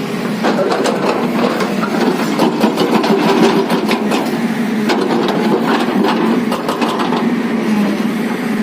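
JCB JS215 tracked excavator's diesel engine running steadily, with many short clicks and knocks over it.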